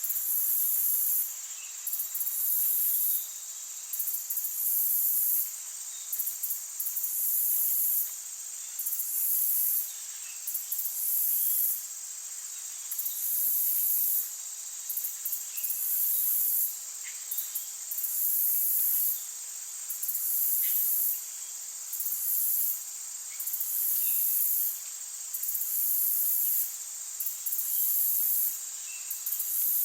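Insects trilling very high in bursts about a second long, repeating roughly every two seconds over a steady high-pitched hum, with faint short chirps now and then.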